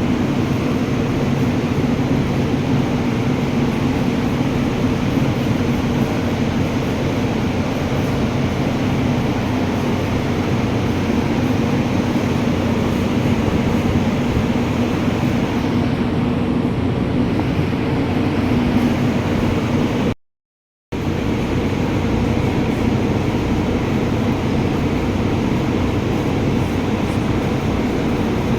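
Ford Ranger engine idling steadily, an engine with oil mixed into its coolant and blowing white smoke. The sound cuts out for under a second about twenty seconds in, then carries on unchanged.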